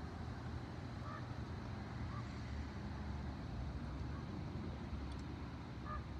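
A few faint, short calls from ravens, about a second in, about two seconds in and near the end, over a steady low rumble.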